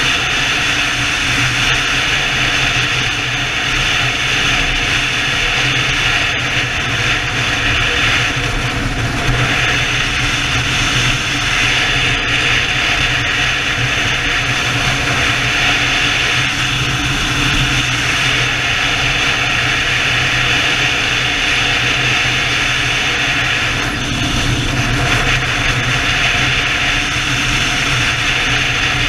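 BMW touring motorcycle cruising at road speed: a steady engine hum under tyre noise and wind rushing past the bike-mounted camera.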